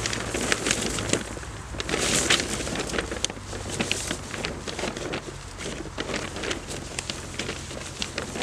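Reflective foil emergency blanket crinkling and rustling as it is pulled and spread out, with dry leaf litter crackling under knees and feet: a string of irregular sharp crackles and short rustles.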